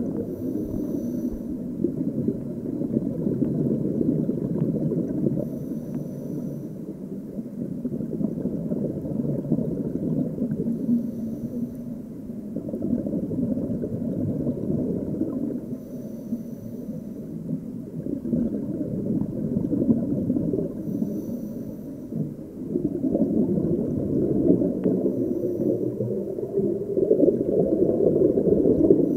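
Muffled underwater sound of a scuba diver breathing through a regulator: a continuous rumble of bubbles that swells and fades, with a short faint hiss about every five seconds.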